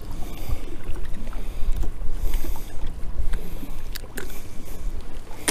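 Small waves lapping against an aluminium boat's hull, with wind rumbling on the microphone. A few light clicks and knocks come from handling the fish and tackle.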